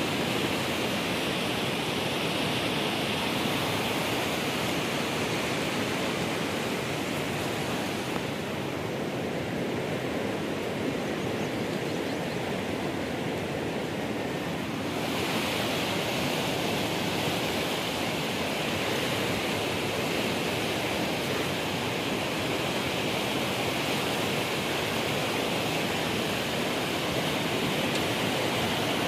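Fast-flowing, turbulent muddy water rushing steadily past a concrete channel edge, a constant noisy rush. Its higher hiss drops back for several seconds in the middle.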